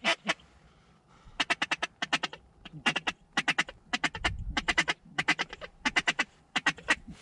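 Duck call blown in quick strings of short, evenly spaced quacks, several strings in a row after a quiet first second, calling to circling ducks.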